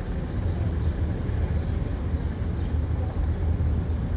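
Boat motor running steadily underway, a constant low drone.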